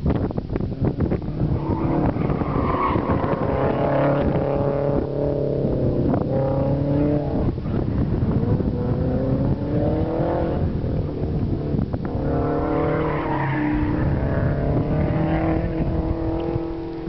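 1994 Toyota MR2 driven hard around an autocross course: the engine revs rise and fall again and again as the driver accelerates and lifts between cones, with brief tyre squeal in the turns. Wind buffets the microphone at the start.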